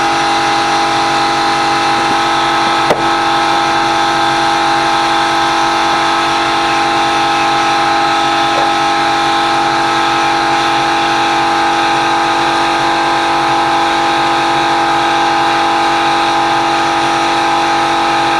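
A machine running steadily at a constant speed, with a single sharp click about three seconds in; it stops near the end.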